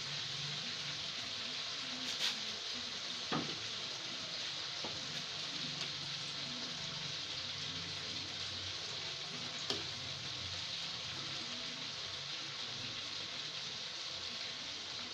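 A pot of fish soup simmering with a steady hiss while a metal ladle stirs it, clinking lightly against the pot three times.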